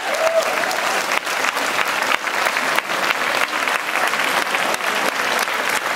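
Large audience applauding steadily, a dense mass of clapping.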